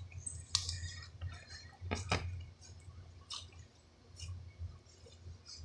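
Sticky glue slime being squeezed and worked by hand in a container: scattered wet squishes with a few light clicks and knocks, the loudest about two seconds in.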